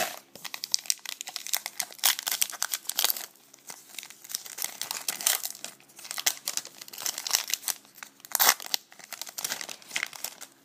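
Wrapper of a trading-card pack being torn open and crinkled by hand, a dense run of sharp, irregular crackles.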